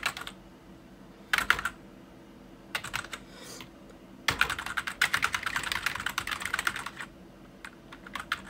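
Typing on a computer keyboard: short bursts of keystrokes, then a longer run of fast typing that starts about four seconds in and lasts some three seconds, and a few last keystrokes near the end. A low steady hum runs underneath.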